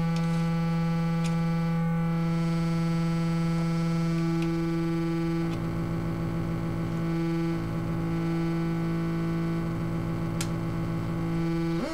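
Eurorack modular synthesizer drone from the reassembled Just Friends module under test: a steady buzzy tone with many overtones. About halfway through a lower pulsing layer comes in, going on and off, and a quick rising sweep comes at the very end.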